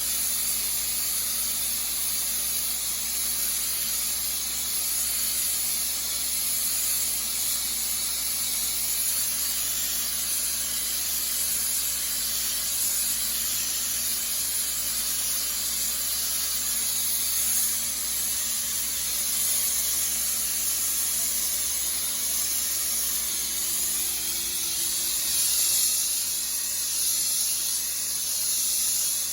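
Dustless (wet abrasive) blaster nozzle hissing steadily as it strips old weathered stain from a wood garage door, with a faint steady low hum beneath.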